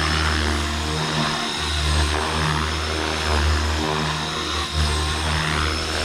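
Blade Fusion 360 3S electric RC helicopter in flight: a steady high whine from the motor and drive, over a low rotor throb that swells and dips in loudness as it manoeuvres.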